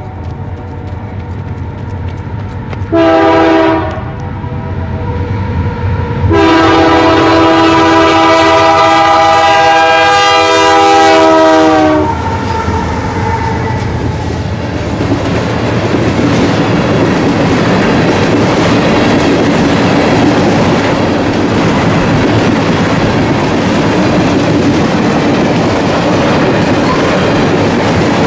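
Diesel freight locomotive approaching with its engine running, then sounding its multi-note air horn: one short blast, then a long blast of about six seconds. The train then rolls past with a loud, steady rumble and clickety-clack of wheels on the rails.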